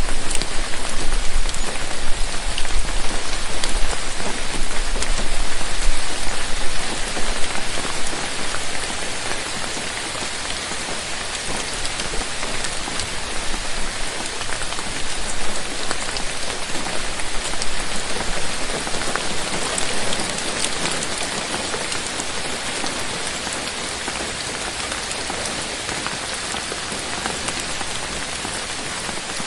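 Steady rain falling, a dense even patter with scattered individual drop ticks. It is heavier at first with a low rumble underneath, then eases a little after about eight seconds.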